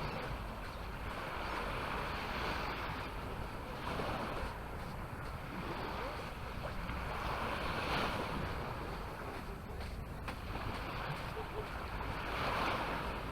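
Small waves washing onto a sandy beach, the surf swelling and falling back about every four seconds, with wind rumbling on the microphone.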